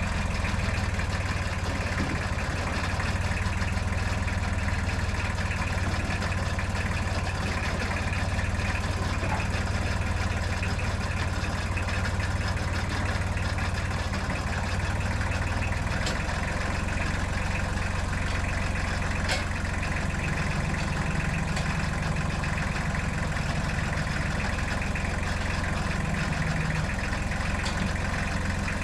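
Tractor engine running steadily at idle; its note shifts slightly about halfway through.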